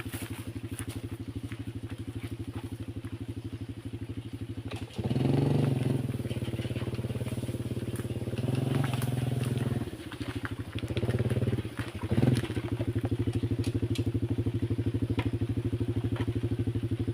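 Small motorcycle engine running with an even putter, revved up a few times partway through and then settling back to a steady run.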